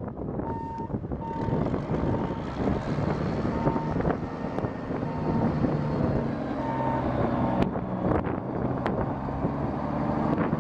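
Komatsu S6D125 six-cylinder diesel of an articulated haul truck running as the truck drives on gravel. A reversing alarm beeps about once a second, irregularly, for roughly the first seven seconds.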